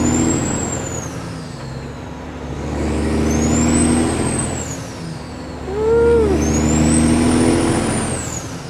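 Kenworth W900's diesel engine with loud pipes pulling up through the gears: the exhaust note builds with a rising turbo whistle, falls away at a shift about two seconds in and again about five seconds in, then pulls hard again. A short chirp sounds as it picks up about six seconds in.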